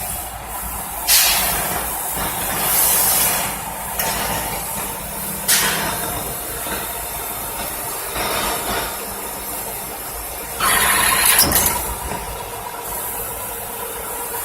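Special purpose machine for machining gas elbows running with a steady hum. Several sudden bursts of hissing air cut through it, the longest and loudest about eleven seconds in.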